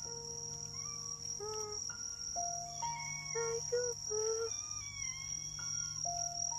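A steady, high-pitched insect trill, like crickets, with soft melodic notes held and gliding over it.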